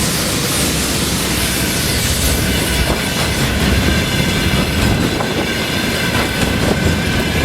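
A train passing close by on the railway, the wheels rumbling and clattering over the track, with a steady high wheel squeal joining about three seconds in.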